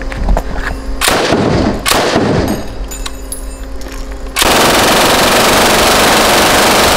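IWI Negev 5.56 mm belt-fed light machine gun firing on full auto: two short bursts about a second and two seconds in, then a long continuous burst from about four and a half seconds in that runs past the end.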